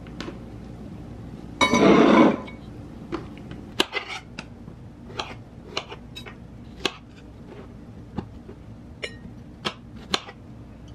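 Kitchen knife cutting strawberries directly on a countertop: about ten sharp knocks of the blade striking the counter, at uneven spacing of roughly one a second. About two seconds in there is a short, louder clatter.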